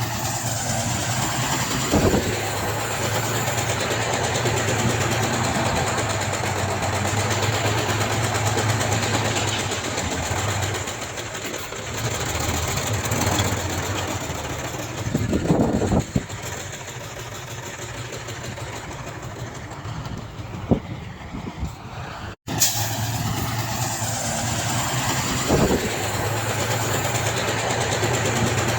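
Heavy diesel engine of earthmoving machinery running steadily, with a few knocks and clanks. The sound drops out for an instant about three quarters of the way through, then resumes.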